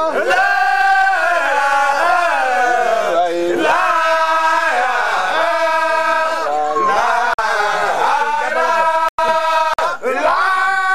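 A group of Baye Fall men singing a devotional chant: loud male voices in long, sliding phrases, with short breaths between phrases about two-thirds of the way through.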